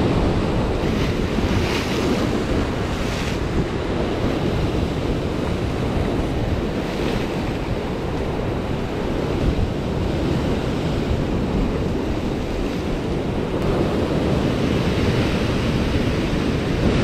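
Rough sea surf breaking and washing over rocks in a steady rush, with louder breaking splashes about two seconds in and again around seven seconds. Strong wind is buffeting the microphone throughout.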